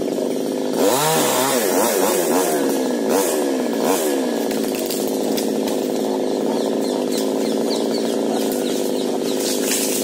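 Chainsaw working high up in a tree, revved up and down over and over for the first few seconds, then running at a steady pitch as it cuts, throwing down chips.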